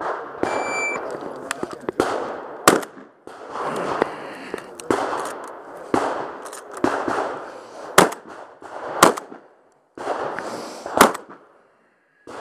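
A shot timer's beep starts the run about half a second in, then a Remington 1100 semi-automatic shotgun fires single shots a second or several apart: one early on its own, then three closer together later. A rough rustling noise fills the gaps between shots.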